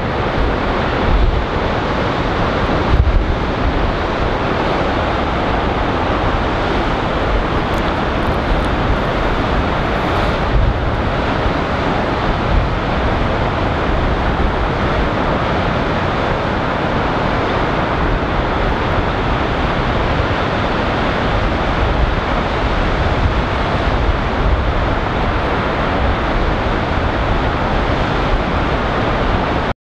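Waves stirred up by a large breaking iceberg wash steadily against the rocky shore of an icefjord, with gusts of wind buffeting the microphone.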